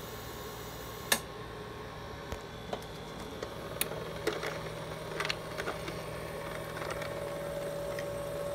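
Dometic portable ice maker running with a steady hum. A sharp click comes about a second in, then scattered light ticks and cracks, and a new steady tone joins about three and a half seconds in as the machine starts the harvest cycle for its first batch of ice.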